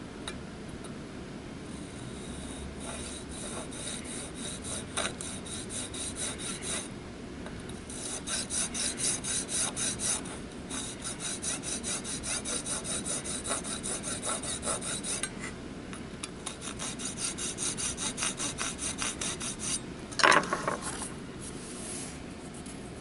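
Fine-toothed hand saw cutting a shallow slot across a hard acrylic cigar-holder mouthpiece, in quick back-and-forth rasping strokes about four a second, pausing briefly twice. A brief louder knock near the end.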